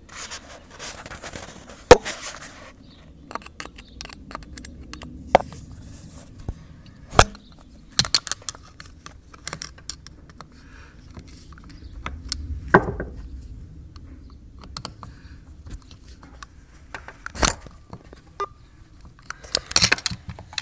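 Scattered clicks, taps and scrapes of a screwdriver and small metal carburetor parts being handled, with a sharp knock about two seconds in.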